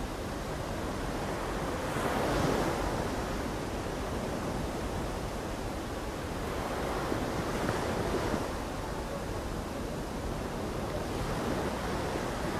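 Sea surf washing onto a sandy beach, a steady hiss that swells as a wave breaks about every five seconds.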